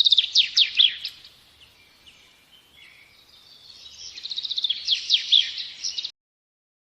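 A small songbird singing: two bursts of fast, high trills, each ending in quick down-sweeping notes, with a quieter stretch of scattered soft notes between them. The song cuts off abruptly about six seconds in.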